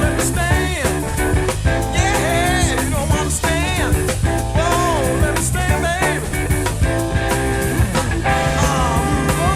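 Background music: a rock song with a steady beat, guitar and a gliding lead voice.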